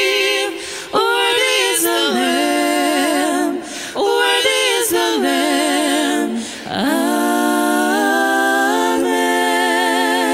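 Three women singing a hymn together, their voices held in long notes with vibrato. The phrases are broken by short pauses about a second in, at about four seconds and near seven seconds.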